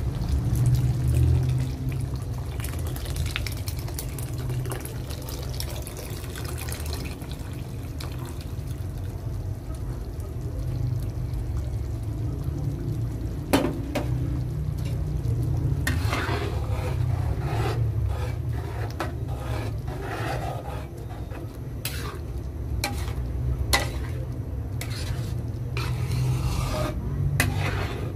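A metal spoon stirring and scraping thick tomato spaghetti sauce in a metal pan, with short scraping strokes in the second half and a sharp click of the spoon against the pan about halfway through and again later. A steady low rumble runs underneath.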